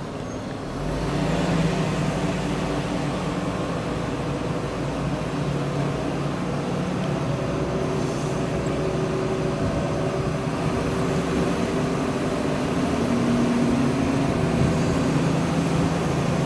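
Kato SR-250VR rough-terrain crane's diesel engine speeding up about a second in and then running steadily at raised revs to work the hydraulics while the boom is lowered and stowed.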